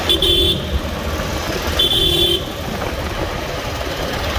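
Two short vehicle-horn honks, each about half a second long and a little under two seconds apart, over the steady rush of wind and motorcycle engine noise at city riding speed.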